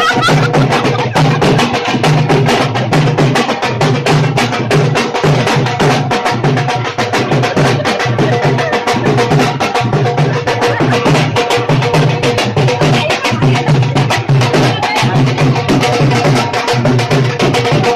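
Dhol drum beaten in a fast, steady dance rhythm, sharp stick strikes repeating without a break.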